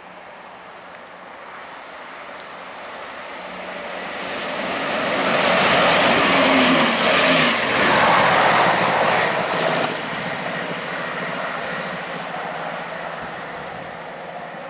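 Class 170 Turbostar diesel multiple unit approaching and running past along the platform: its noise builds steadily to a loud peak, with two brief high squeals in the middle, then drops suddenly about ten seconds in and carries on more quietly.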